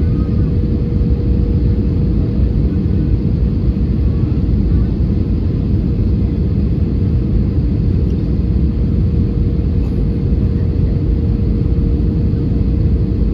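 Airbus A320neo cabin noise during the descent to land: a steady low rumble of engines and airflow with one constant hum-like tone above it.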